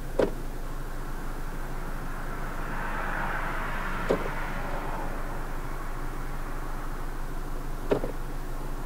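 The gear selector of a 2014–2015 Honda Civic's CVT clicks into a new position three times, about four seconds apart, over the steady idle of the running engine. The transmission is being shifted through each gear, foot on the brake, as part of the CVT fluid level check.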